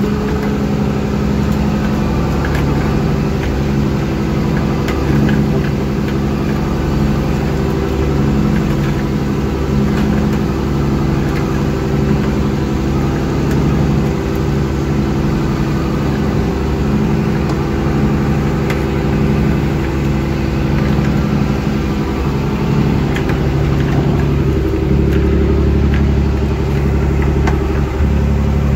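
Fishing boat's engine running steadily under way, a constant drone with a low hum.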